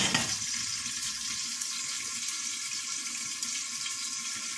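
Chicken pieces sizzling in hot oil inside a lidded pressure cooker: a steady, even hiss.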